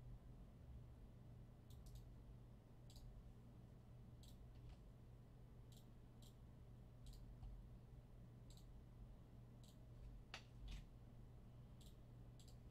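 Faint, scattered clicks of a computer mouse, irregularly spaced, over a low steady hum.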